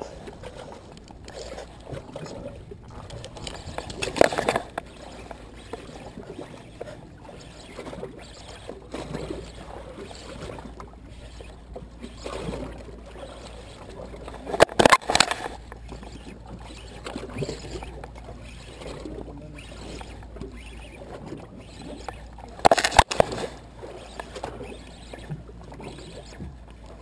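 Sea water sloshing against a small boat's hull over a low steady rumble, with loud knocks or handling bumps three times: about four, fifteen and twenty-three seconds in.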